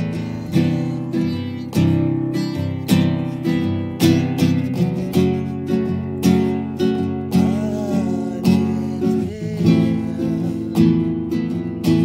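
Acoustic guitar playing chords in a steady rhythm.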